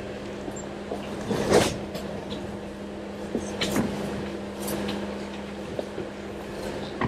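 Off-road vehicle crawling slowly over rock, its engine giving a steady low hum under a few knocks and clunks from the suspension and body. The loudest clunk comes about a second and a half in.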